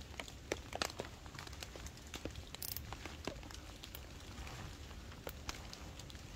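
Rain poncho and canvas tarp rustling and crinkling as hands work the tarp's edge, with scattered light ticks over a low background rumble.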